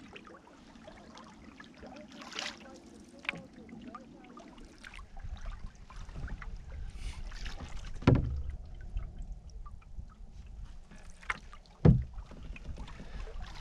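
Canoe paddle strokes: a wooden single-blade paddle dipping and pulling through the water, each stroke a short splash and wash. Twice a sharp knock stands out, the loudest sounds, and a low rumble builds from about a third of the way in.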